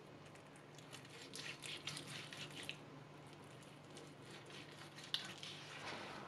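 Knife cutting through parboiled pork belly on a cutting board: faint slicing sounds, busiest between about one and three seconds in, with one sharp tap about five seconds in.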